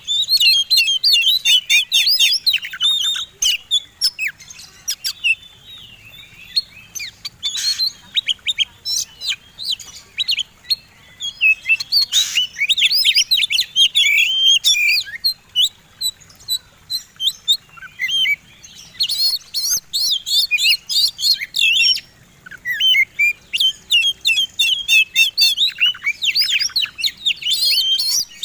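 Oriental magpie-robins in full competition song: fast, varied whistled phrases mixed with sharp clicking notes, coming in bursts with brief pauses.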